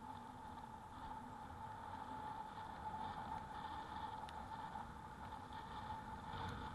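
Steady rolling and wind noise from riding an e-bike, with a constant hum running beneath it.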